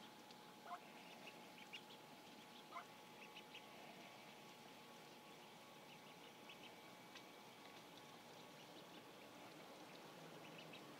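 Ancona ducklings peeping faintly and sporadically, with short scattered calls, the clearest in the first three seconds or so, over a faint steady hum.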